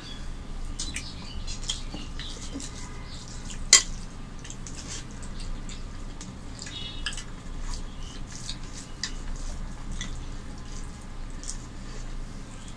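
People eating rice and curry with their hands: fingers mixing rice on plates, with many small wet clicks and smacks of chewing. One sharp clink, the loudest sound, comes a little under four seconds in.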